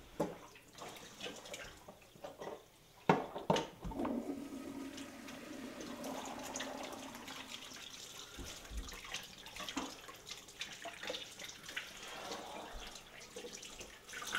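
A few sharp knocks in the first few seconds, the loudest about three seconds in, then a kitchen tap running steadily into the sink with hands being washed under it.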